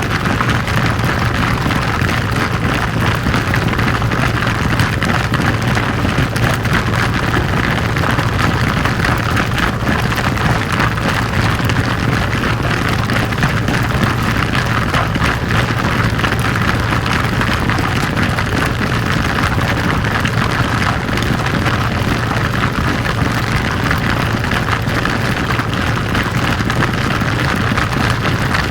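Rock slide: a steady, unbroken mass of tumbling rocks, a low rumble under dense continuous clattering.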